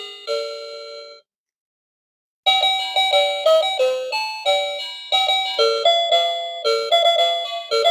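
Hello Kitty toy telephone playing its built-in electronic melody: a chime dies away in the first second, then after a short gap a bright, tinkly tune of quick notes starts up.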